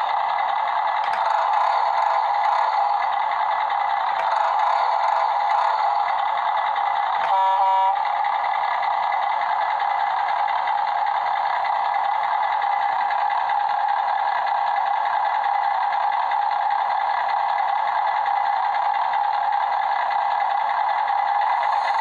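Mattel Jurassic World Off-Road Rescue Rig toy truck's electronic engine sound effect running steadily from its small speaker. It has a tinny, buzzing drone, and a short pitched horn sound comes in about seven seconds in.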